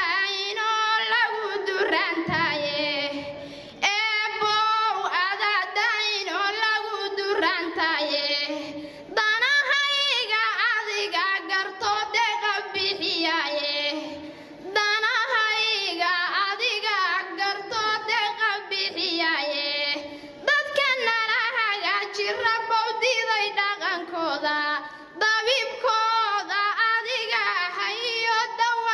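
A young woman's voice chanting a Somali gabay poem in a sung melody, in lines of about five seconds, each ending with a brief pause.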